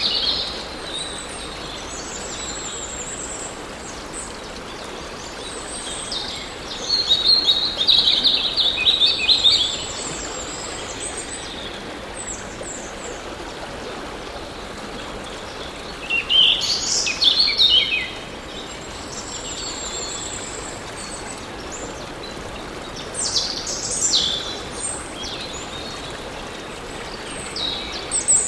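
Songbirds singing in short bursts of quick, high phrases, three main spells of song, over the steady rush of flowing water.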